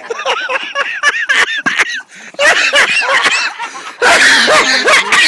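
Several people laughing and whooping, with a louder outburst of laughter and shouting about four seconds in.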